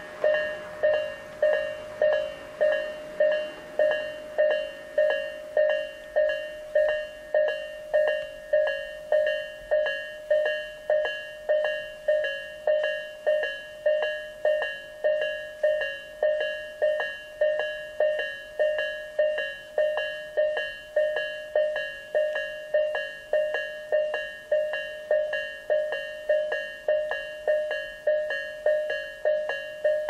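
Electronic level-crossing warning bell, the Tobu Isesaki Line type in a slightly lower-pitched, slower version, ringing evenly at a little under two strikes a second: the crossing is signalling a train's approach.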